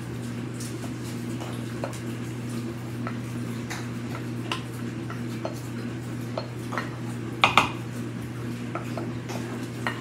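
A spoon scraping and tapping against a mixing bowl as a wet, soupy mixture is poured and scraped out into a glass baking dish: scattered light clicks and scrapes, with a couple of louder knocks about seven and a half seconds in, over a steady low hum.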